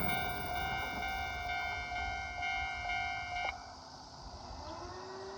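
Japanese railway level-crossing warning bell ringing its repeated electronic ding, then cutting off suddenly about three and a half seconds in: the crossing clearing after the train has passed.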